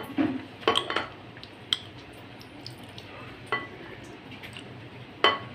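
Spoon stirring thick cake batter in a glass bowl as milk is mixed in, with soft squishing and about six sharp knocks of the spoon against the glass, each ringing briefly.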